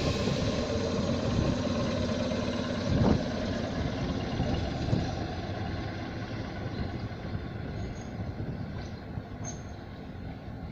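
ED4M electric multiple unit pulling away, its running rumble slowly fading, with a single sharp clank about three seconds in.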